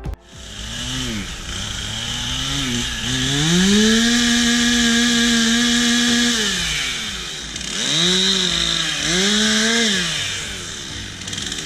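Chainsaw engine revving: it climbs to full throttle and holds there for about three seconds, drops back, then revs up twice more in short bursts.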